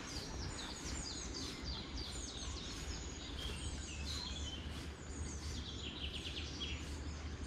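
Songbirds singing: a quick run of short, high chirps sliding downward in pitch, over a steady low rumble.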